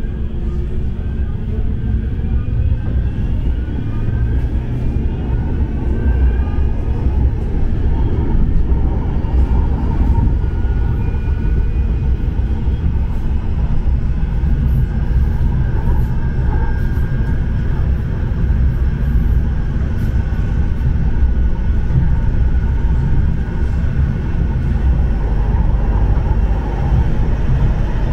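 Bombardier M5000 tram running along its track, heard from inside the car: a steady low rumble of wheels on rail, with a faint rising electric whine from the traction motors over the first few seconds.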